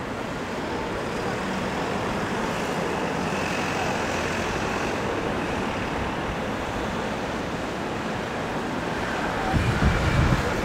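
City street ambience: a steady wash of road traffic, with a louder low rumble coming in near the end.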